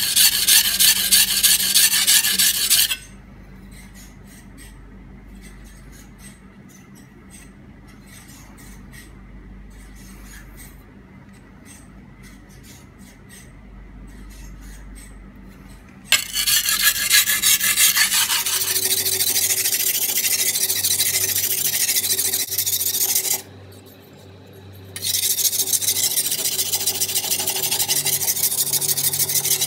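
Steel cleaver blade pushed back and forth on a coarse carborundum sharpening stone (150 then 320 grit), a fast rhythm of rasping strokes, grinding out a chipped edge. The strokes stop for about thirteen seconds after the first three, then start again, with a short break near the end.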